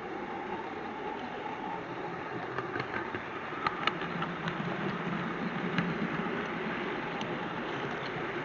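Model train running along the layout track: a steady rumble of wheels and motor, with a few light clicks in the middle stretch.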